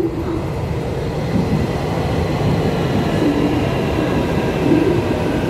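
An EMU800-series electric commuter train running along the platform of an underground station, a steady rumble of wheels on track with a faint whine that slowly rises in pitch.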